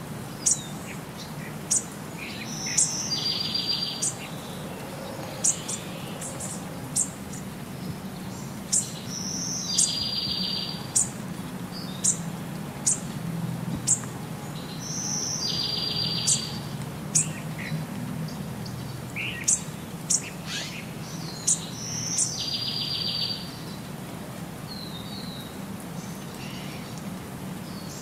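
Birdsong: sharp high chirps about once a second, and a short buzzy trill lasting about a second that comes back at even intervals of about six and a half seconds, the pattern of a looped birdsong track.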